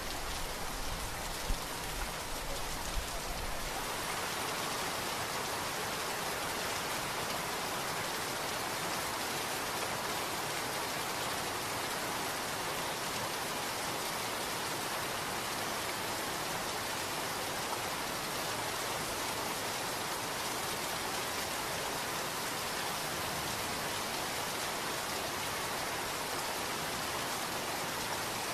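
Steady pouring rain, an even rushing hiss of many drops. A low rumble underneath dies away in the first few seconds.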